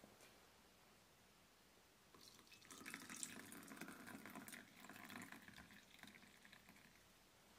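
Milk poured from a jug into a small glass, a liquid stream trickling and splashing into the glass. It starts about two seconds in and fades out near the end.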